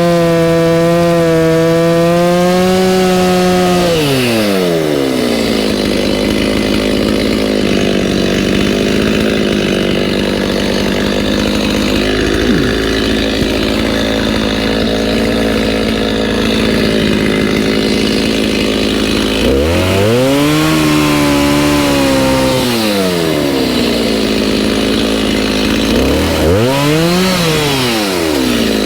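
Two-stroke chainsaw running at high revs, then dropping to a low, steady run about four seconds in. It is revved up and let down again twice near the end.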